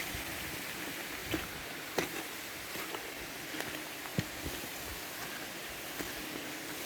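Footsteps crunching on a forest path, a few uneven steps with the sharpest about four seconds in, over a steady rushing hiss.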